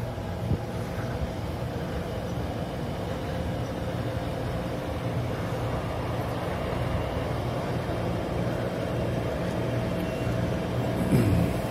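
An engine running steadily with a constant low drone and a steady tone above it. There is a short louder swell with a rising pitch near the end.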